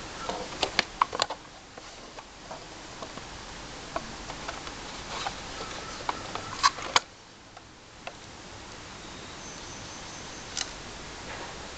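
Polaroid 195 Land Camera being handled as its back is worked open: a quick cluster of sharp clicks and knocks about a second in, scattered light taps, then two sharp clicks of the back's latches about seven seconds in and one more click near the end.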